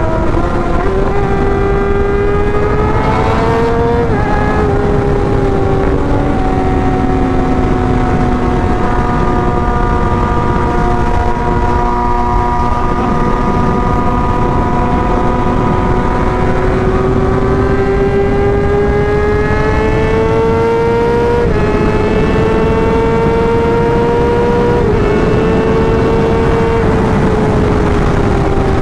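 Kawasaki ZX-6R's inline-four engine running at highway speed, heard from on board the bike over a steady rush of wind. Its pitch climbs slowly and drops sharply about four seconds in, again after about twenty-one seconds and once more near twenty-five seconds, then eases down near the end.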